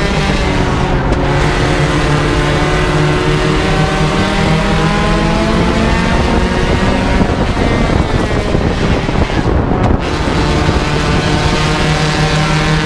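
Four-cylinder race car engine running hard on an oval. The revs fall and rise again as the car goes through the turns.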